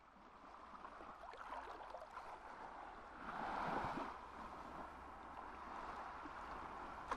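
Faint rushing noise, like wind or water, with a few soft clicks; it swells for about a second around three seconds in.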